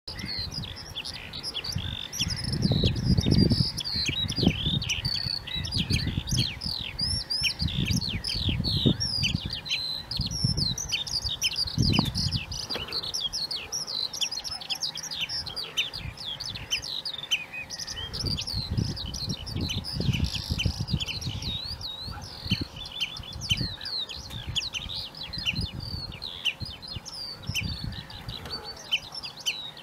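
Birds calling with rapid, high chirps, many a second and without let-up, over bursts of low rumble that are loudest a few seconds in.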